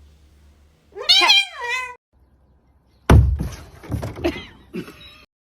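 A cat meows once, a drawn-out call that rises and then falls, about a second in. About three seconds in comes a loud thump, followed by more knocking sounds, and then the sound cuts off suddenly.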